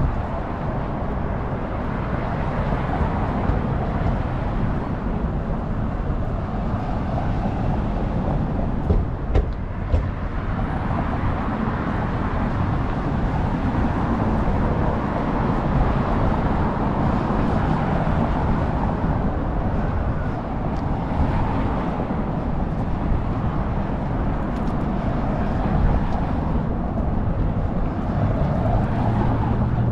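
Steady city street traffic: a continuous rush of passing cars and tyres, with a few brief sharp knocks about nine seconds in.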